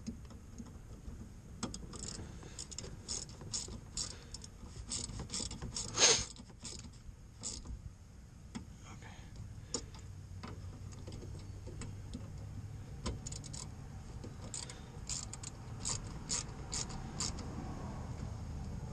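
Irregular clicks and clacks of hand tools and plastic parts being worked on a car's headlight assembly, with one loud clack about six seconds in.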